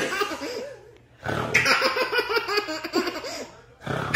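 Toddler laughing hard in quick high-pitched bursts: one bout fading out in the first second, a short pause, then a longer bout, and another beginning near the end.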